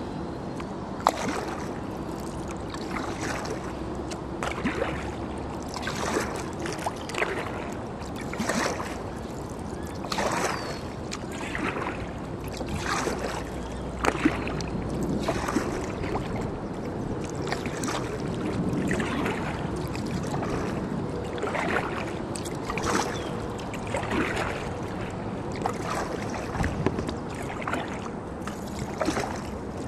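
Sea kayak paddle strokes, the blades dipping and splashing in turn about every one and a half seconds, with water trickling off them.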